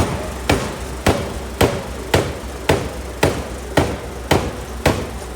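A 750 kg pneumatic forging hammer striking a hot steel block in a steady rhythm, about two blows a second, each with a short metallic ring, over a low steady hum.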